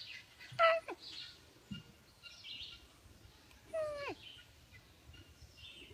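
A cat meowing twice, two short meows that fall in pitch, about half a second in and again about four seconds in.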